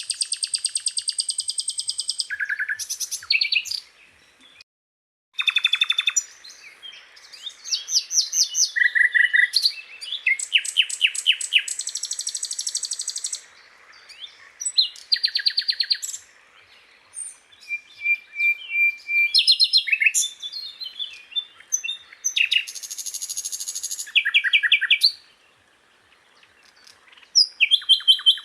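Sikatan londo flycatcher singing: a run of high-pitched, rapid buzzy trills and quick chirp phrases, each a second or two long, separated by brief pauses.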